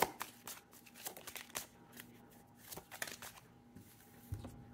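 Tarot deck being shuffled by hand: a quick run of soft card flicks and taps that thins out, then a soft low thump near the end, over a faint steady hum.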